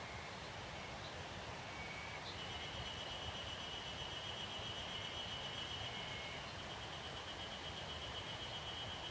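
Forest ambience: a soft steady hiss, with a few short high whistles and then, from about two seconds in, a long even high-pitched trill that breaks off briefly after six seconds and starts again.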